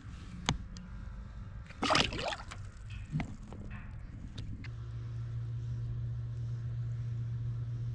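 A largemouth bass let go beside the boat, with a splash of water about two seconds in. From about halfway, a bow-mounted electric trolling motor runs with a steady low hum.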